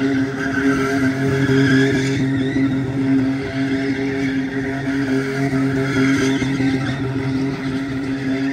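Truck engine held at steady high revs during a burnout, with the spinning tires screeching.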